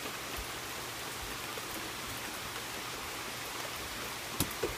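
Steady rain falling on a wet wooden deck, an even hiss, with one sharp knock near the end.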